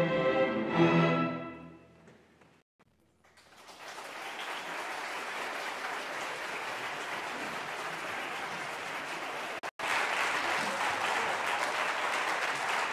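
A string orchestra of violins, cellos and basses plays a final chord that swells and then rings away into a moment of silence. An audience then breaks into steady applause, which drops out for an instant near the end.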